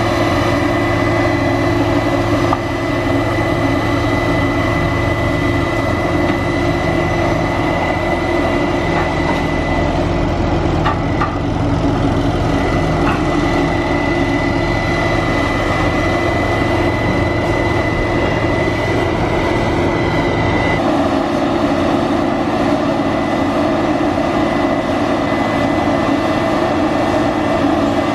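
A large vehicle engine running steadily under load, with a thin high whine over a low hum; its note shifts slightly about twenty seconds in.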